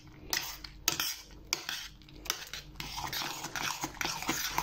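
Spoon stirring thick rice pudding in a stainless steel pot, knocking and scraping against the pot's side and bottom. Separate sharp clinks come in the first couple of seconds, then the stirring turns into quicker, continuous scraping.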